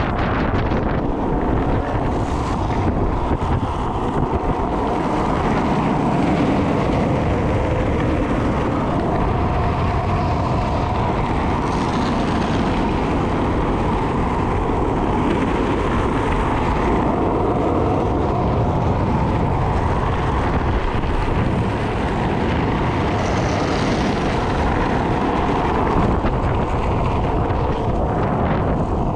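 Steady wind noise on a GoPro microphone at downhill speed, over the rumble of freebord wheels rolling on asphalt.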